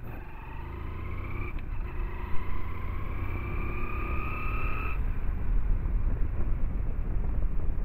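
Hero Splendor 100 cc single-cylinder motorcycle running under way, with a low rumble and a whine that rises steadily in pitch as the bike picks up speed, then drops away about five seconds in.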